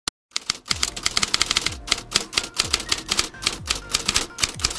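Typewriter keys clacking in quick runs of several strokes a second, with a few deep falling thuds among the keystrokes.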